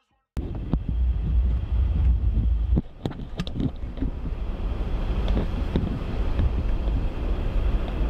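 Cabin noise of a Jeep driving along a slushy street: a steady low rumble of road and engine, with a few knocks and clicks. It starts abruptly just after the beginning.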